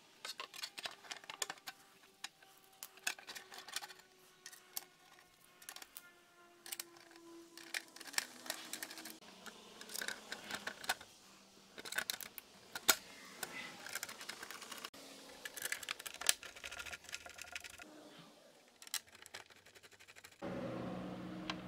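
Small metal fasteners and collars handled against a Yamaha TMAX 500's plastic front fender: a run of irregular light clicks and taps as bolts and washers are fitted by hand. A louder steady sound sets in near the end.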